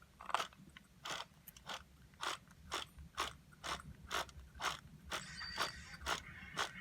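Small mechanism clicking in a steady rhythm of about two clicks a second, like a ratchet or gears being worked.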